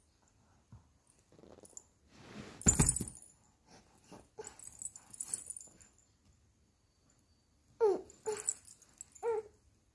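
A puppy whimpering: three short whines with a falling pitch near the end, and a loud brief rustle of handling noise about a quarter of the way in.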